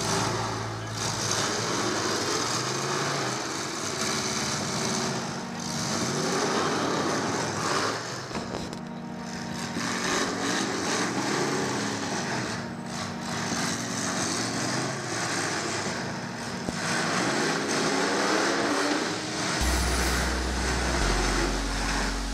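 Engines of full-size demolition derby cars running and revving hard, rising and falling over one another, with music over the arena's loudspeakers underneath.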